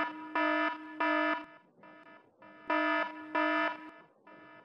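Electronic alarm horn sound effect: a harsh steady tone sounding in short repeated blasts, in clusters of two or three loud blasts with fainter ones between.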